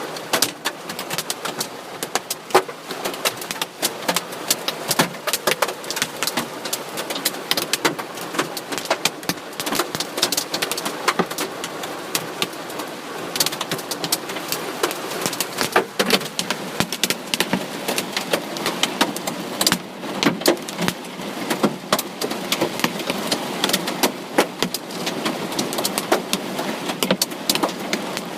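Hail falling on a vehicle: a dense, irregular patter of hailstones striking the bodywork, many sharp ticks and knocks over a steady hiss.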